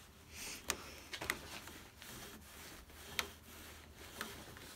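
A part being forced by hand into a tight bore in a wooden space derby rocket body: faint rubbing of wood on wood with a few small clicks and creaks as it works in under pressure.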